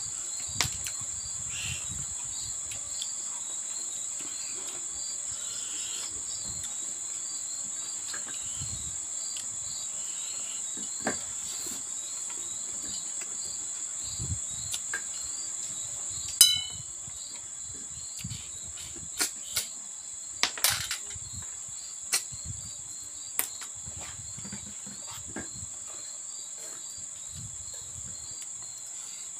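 Crickets chirring steadily at a high pitch, with a fainter chirp repeating in a quick regular pattern beneath it. Scattered sharp clicks and knocks come through, the loudest about sixteen and twenty seconds in.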